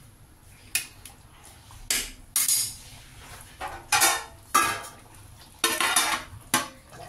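Metal spatula scraping and clanking against an aluminium kadhai while stirring a thick curry gravy, in a series of short separate clatters. Near the end a steel lid clatters onto the pan.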